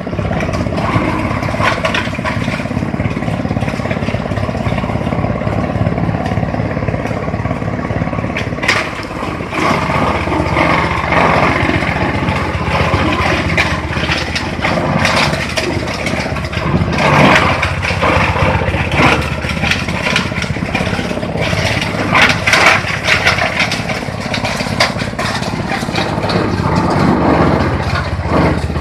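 Engine-driven multipurpose chopping machine running steadily, with irregular louder crunching bursts from about nine seconds in.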